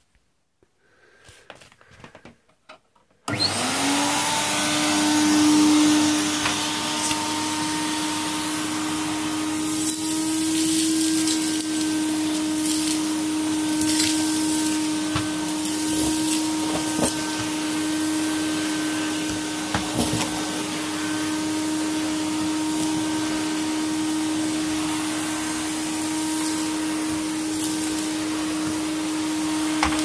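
Hoover Galaxy SC228 cylinder vacuum cleaner switched on about three seconds in after a few faint knocks, its motor spinning up quickly to a steady whine and running on, with occasional sharp clicks. It runs louder than normal because the motor's armature bearing was refitted in the wrong position.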